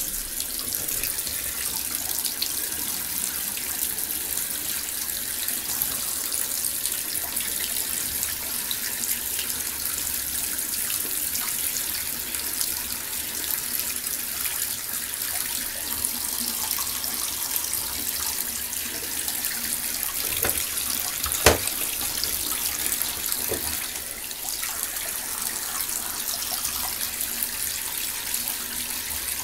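Bathtub faucet running steadily, water splashing onto the empty tub floor around the drain. A single sharp knock about two-thirds of the way through.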